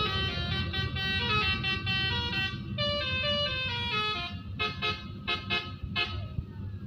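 Bus 'telolet basuri' musical air horn playing a melody of stepped notes, ending in a quick run of short blasts before it stops, over a low engine rumble.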